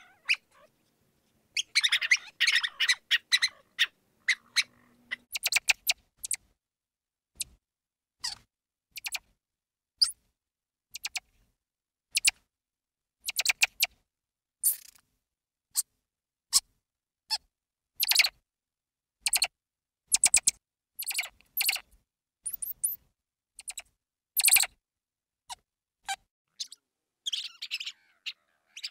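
Mouse squeaking in short, high-pitched squeaks, about one a second, with quick runs of chattering squeaks about two seconds in and again near the end.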